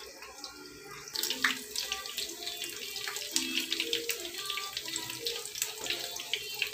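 Anchovy fritters frying in hot oil in a nonstick pan: a steady sizzle full of quick crackles and pops of spitting oil. It is fainter for the first second, then louder and busier.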